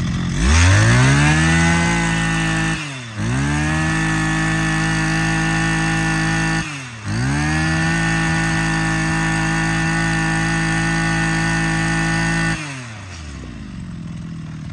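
Maruyama 26cc two-stroke brush cutter engine revved up to high speed and held there. The throttle is briefly let off and reopened twice, and near the end the engine drops back to idle.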